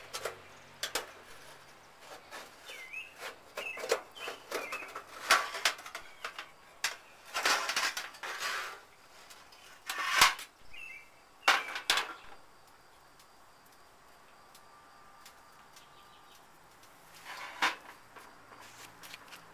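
Metal clinks, scrapes and clatters as wire tongs lift the lid off a charcloth tin, set it down and are laid aside, with the loudest knocks in the middle and one more near the end. Birds chirp briefly now and then.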